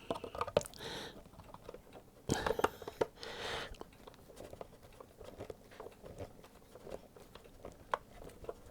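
Small clicks, ticks and scraping from working ferrule-ended wires into a power supply's screw-clamp terminal block, with a louder stretch of scraping and rubbing about two to three and a half seconds in.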